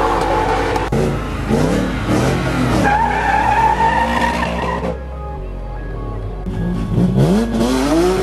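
Race car engines revving in a run of short cut-together clips, their pitch sweeping up and down, with tyre squeal from a burnout, over background music. The sound changes abruptly about a second in and again about five seconds in.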